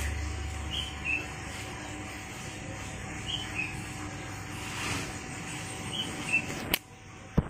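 Steady outdoor background noise with a small bird's two-note chirp repeating about every two and a half seconds, as background music fades out in the first second. A single sharp click comes near the end.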